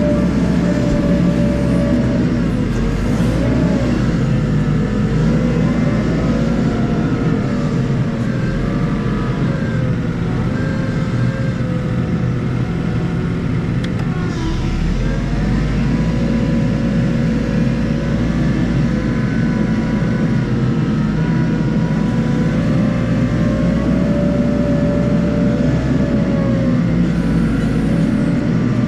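Hitachi 120 wheel loader's diesel engine running and working, heard from inside the cab, its note rising and falling several times as the load changes.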